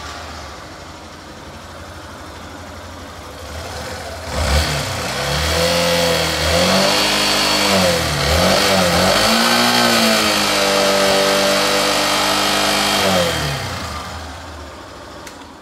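Yamaha Factor 150's single-cylinder four-stroke engine idling, then revved several times from about four seconds in, held at higher revs, and dropping back toward idle near the end. It carries the annoying engine noise the customer complained of, which the mechanic later traces to slight play in the connecting rod.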